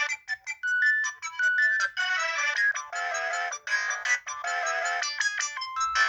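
Polyphonic ringtone playing on a Samsung SGH-X800 mobile phone: a quick melody of short, stepping notes in several voices, thin and without bass.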